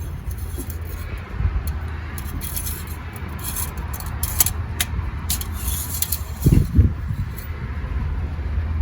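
Engine oil dipstick being handled in its tube: light metallic clicks and scrapes, then a couple of dull knocks near the end, over a steady low background rumble.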